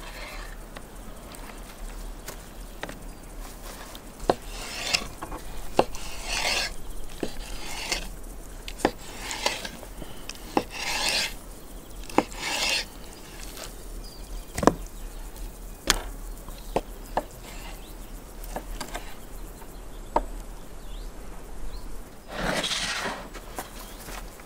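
Kitchen knife slicing raw heart on a wooden cutting board: sharp knocks of the blade meeting the board, mixed with short swishing strokes of the knife through the meat.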